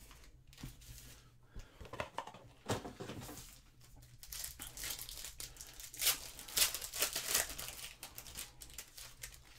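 Foil wrapper of a trading card pack torn open and crinkled by hand, in a string of short rips and rustles, the loudest ones past the middle.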